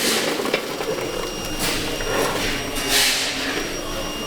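Sand-moulding work in a foundry: four short hissy rushes, the strongest about three seconds in, over a steady high-pitched whine from foundry equipment.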